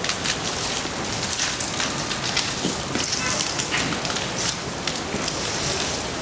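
Dense, steady crackling and clattering, many small clicks running together: plastic tube legs and joints of a wind-powered strandbeest walking on sand.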